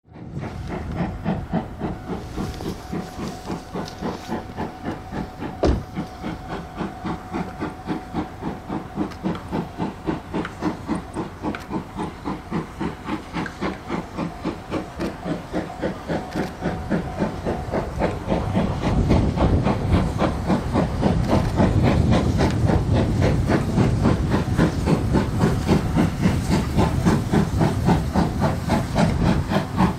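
Steam locomotive working under steam, its exhaust chuffing in an even rhythm of about three beats a second with hissing steam, growing louder about two-thirds of the way through as it comes closer.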